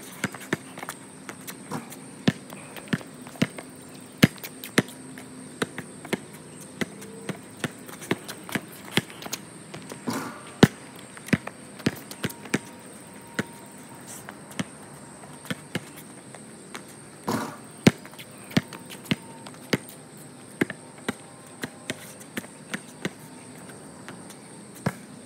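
Basketball dribbled on a concrete court: sharp bounces at an uneven pace, roughly one to three a second, with short pauses between runs of moves.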